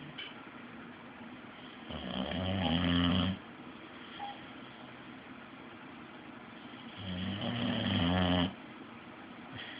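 Boxer dog snoring in her sleep: two long snores about five seconds apart, each growing louder and then stopping abruptly.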